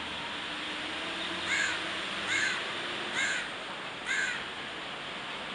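A crow cawing four times in an even series, each caw short and harsh, over a steady background hiss.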